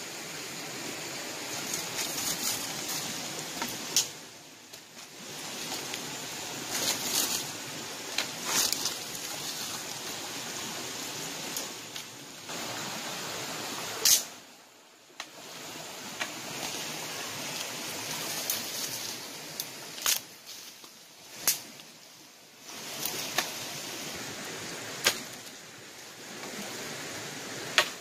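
Dry leaves and twigs rustling and crackling as someone moves through forest leaf litter, with sharp snaps of twigs every few seconds, the loudest about halfway through.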